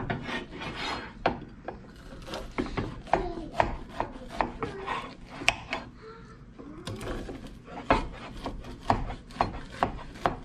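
A knife cutting a dish of Rice Krispies treats into squares: the crisp puffed rice crunches and the blade scrapes and knocks on the bottom of the glass baking dish, in many short, irregular clicks.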